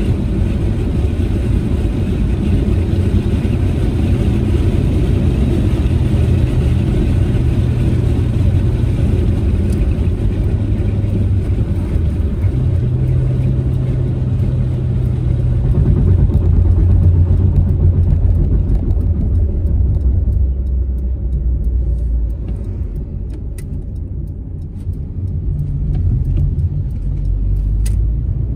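A Proton Saga MC2's four-cylinder engine drones steadily over tyre and road noise as the manual car is driven, its pitch stepping to new levels a few times. In the second half the road noise thins out and the level dips briefly before it comes back up.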